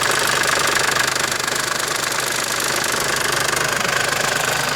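Mercedes-Benz OM651 four-cylinder diesel running, with a rapid steady rattle from the vacuum pump drive with the brake-booster vacuum line connected: the pump's internal splines are worn.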